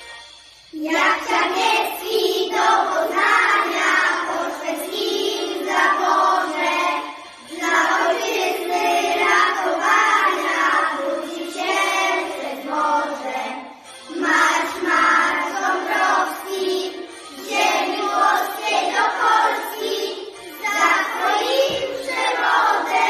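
A class of young children singing a Polish patriotic song together as a group, starting about a second in. They sing phrase by phrase, with brief breaks between lines.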